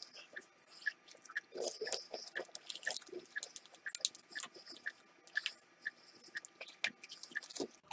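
Crunching and chewing of a Fujiya Home Pie, a buttery, flaky pie-crust cookie: a bite, then many small, irregular crackles as the flaky pastry breaks up in the mouth.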